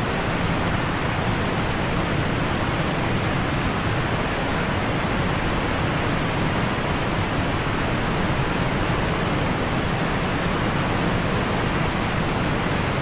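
Steady, even rush of flowing river water, fading in over the first second.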